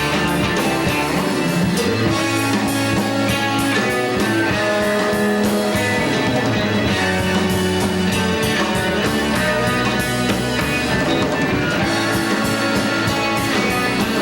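Rock band playing: electric guitar over bass and a drum kit, running steadily with no break.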